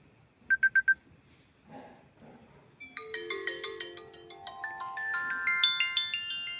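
iPhone 7 Plus ringtones: four quick identical beeps about half a second in, then from about three seconds a bright, plucked-sounding melody of short notes stepping upward over a low repeating figure.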